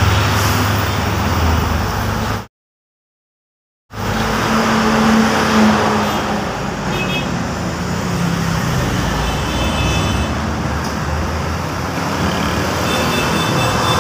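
Diesel trucks and motorcycles passing close on a busy road, a heavy engine drone at the start. The sound cuts out completely for about a second and a half a couple of seconds in, then the passing traffic resumes.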